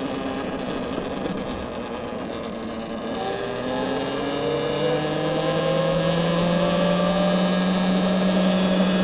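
Talaria XXX electric dirt bike's motor whining, its pitch falling as the bike slows for the first three seconds or so, then rising steadily and growing louder as it picks up speed.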